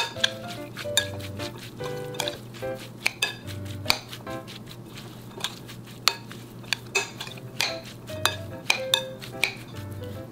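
Metal spoon clinking and scraping against a glass mixing bowl while stirring a moist tofu-and-vegetable stuffing, in quick irregular taps. Light background music with steady notes plays underneath.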